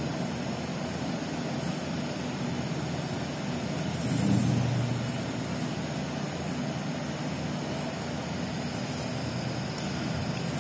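Steady low background hum that swells briefly louder about four seconds in.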